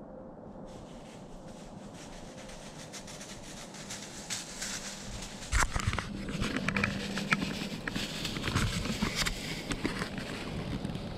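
Quiet woods for the first few seconds, then close rustling, scraping and crackling of clothing and dry brush as the camera is handled and moved, loudest about five and a half seconds in.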